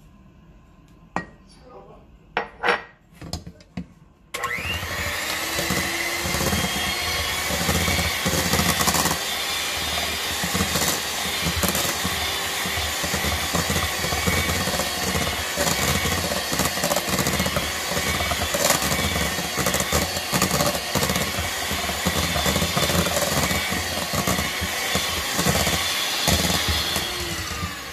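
A few knocks and clicks, then about four seconds in a Kenwood 150 W electric hand mixer starts and runs steadily, its beaters mixing creamed butter and egg yolks in a stainless steel bowl. It stops near the end.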